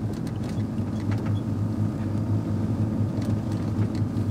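Work van's engine and road noise heard from inside the cab while driving, a steady low drone.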